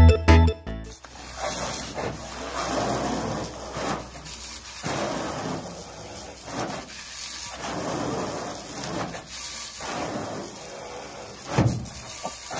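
Piano music cuts off about a second in. Then a hose spray nozzle's jet of water hisses against a pickup truck's side and the grass, rising and falling every couple of seconds, with one thump near the end.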